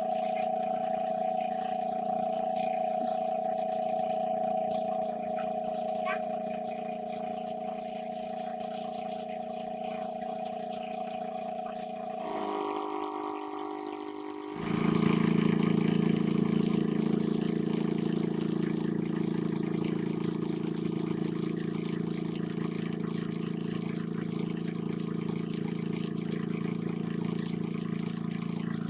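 A small engine running steadily. Its pitch shifts abruptly about twelve seconds in, and a couple of seconds later it runs louder and lower.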